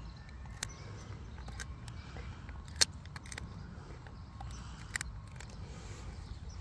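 Airedale terrier chewing a stick, the wood cracking and clicking in its jaws at irregular moments, with one sharp snap about three seconds in and another near five seconds.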